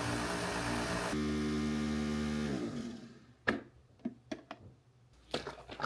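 Nespresso Vertuo coffee machine running with a steady mechanical hum, winding down with a falling pitch and stopping about two and a half seconds in. Several sharp clicks and knocks follow.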